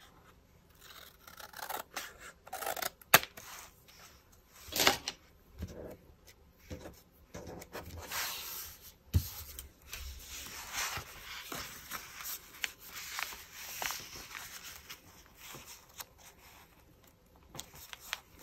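Scissors snipping through a paper pocket to trim it down, with sharp snips early on, the loudest about three seconds in. Then paper rustling and rubbing as the pocket is handled and fitted onto the journal page.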